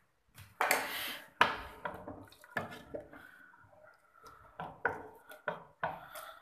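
Wooden spoon stirring boiled black chickpeas in their cooking liquid inside a metal pressure cooker: wet sloshing with irregular knocks and scrapes against the pot.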